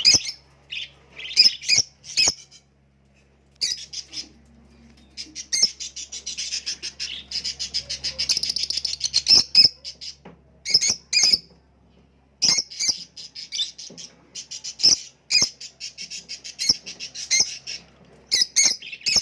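Cockatiels chirping and squawking: sharp single calls mixed with long runs of rapid, rasping chatter, starting and stopping in bursts.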